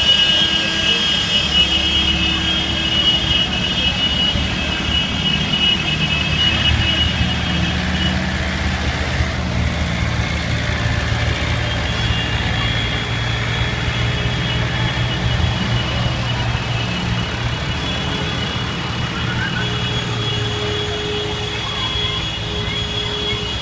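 Diesel farm tractor engines running as a line of tractors drives slowly past, a steady low engine hum with a steady high-pitched whine over it for much of the time.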